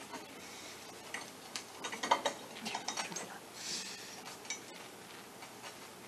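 Scattered light metal clicks and clinks as a steel hook-type belt splice and a rubber baler belt are worked into a metal belt splicing jig by hand, with a short scrape a little past the middle.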